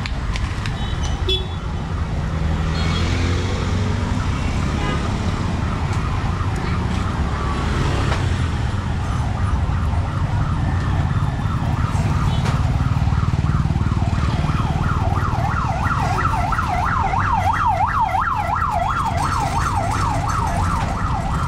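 Low street-traffic rumble, with a siren coming in during the second half, its pitch swinging fast up and down about four times a second in a yelp pattern.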